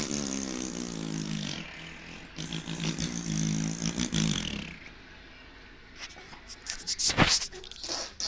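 Two long, low, buzzing vocal noises, each a second and a half to two seconds, made with voice and vibrating lips like a motor sound; a few handling knocks follow, one sharp and loud about seven seconds in.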